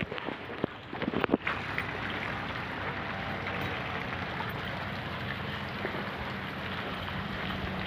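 Steady rush of wind on the microphone, with a few handling knocks about a second in.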